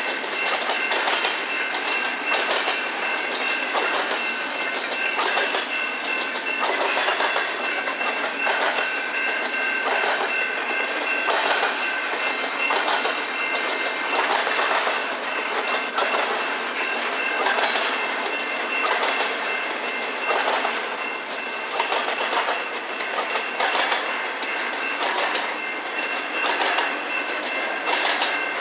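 Freight train cars rolling past, their wheels clacking over the rail joints again and again, with a steady high ringing tone from the train underneath.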